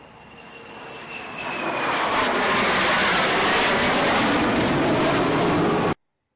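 Aircraft engine noise building as a fixed-wing aircraft approaches, a high whine sliding slightly down in pitch, then a loud steady roar that cuts off suddenly near the end.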